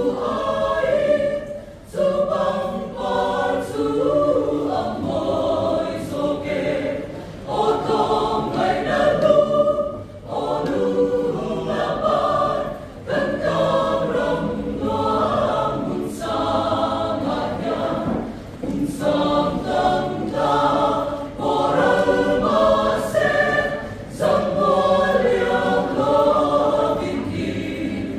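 Mixed choir of men's and women's voices singing together, in phrases with short pauses between them.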